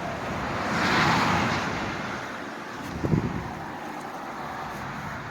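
A vehicle passing by, its tyre and engine noise swelling to a peak about a second in and fading away, then a short knock about three seconds in.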